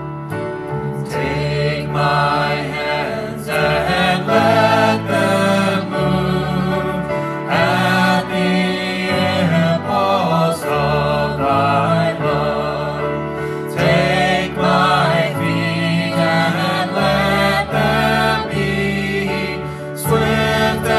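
A worship song: a band plays sustained chords with a steady bass, and a group of voices sings over it. The singing comes in about a second in.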